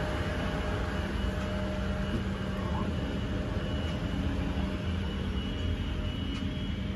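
Steady cabin hum and low rumble inside an Airbus A350-900, the air-conditioning and ventilation running, with a few faint held tones over it.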